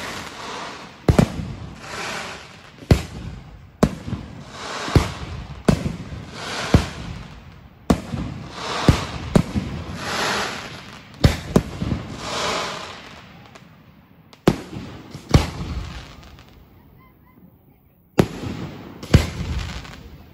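Fireworks going off in quick succession, about one sharp bang a second, each with a short hissing, crackling tail. The bangs thin out after about fourteen seconds, and two more come near the end.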